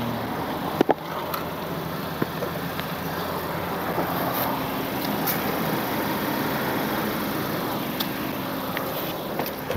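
Vehicle engines idling steadily, with a few short sharp knocks and clicks as wooden boards are shifted under a front tyre.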